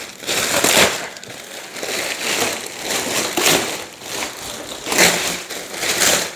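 Packaging being pulled off and crumpled by hand, in irregular bursts of crinkling noise, several of them louder than the rest.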